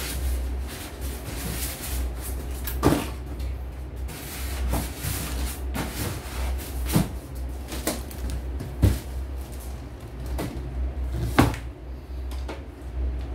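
Cardboard box and styrofoam packing being handled and pulled apart: rustling and scraping broken by about half a dozen sharp knocks, over a steady low hum.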